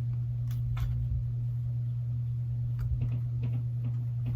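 Steady low hum with a few faint clicks and taps, the sound of small phone parts being handled.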